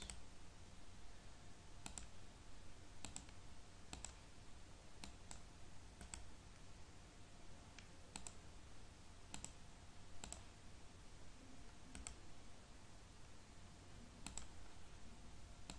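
Faint computer mouse clicks, about a dozen at irregular spacing, roughly one a second, over a low steady hum.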